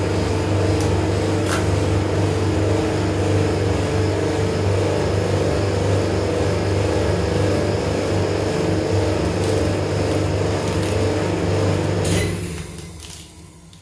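Steady mechanical hum of a rolled ice cream machine's refrigeration compressor running under the cold plate. It dies away about twelve seconds in.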